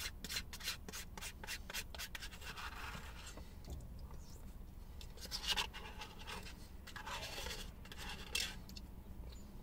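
White plastic spoon scraping and clicking against the inside of a small ice-cream tub in a run of short, faint scrapes, as the last of the Oreo soft-serve is scooped out.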